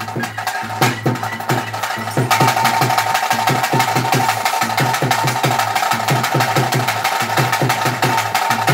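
Traditional ritual drumming at a fast, even beat of sharp strokes, with a held high note joining about two seconds in.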